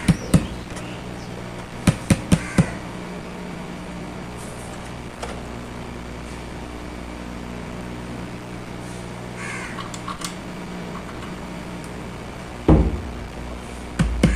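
Fingers tapping on the paper cones of 12-inch DEYS speakers to check the cone paper: a few sharp taps at the start and four more about two seconds in, over a steady low hum. A single loud thump comes near the end.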